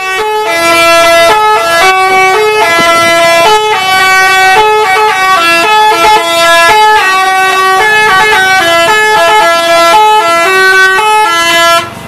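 Telolet multi-tone horn on an Alfarruq intercity bus playing a long, loud melody: several horn notes sound together and step up and down in pitch every fraction of a second, then cut off abruptly near the end.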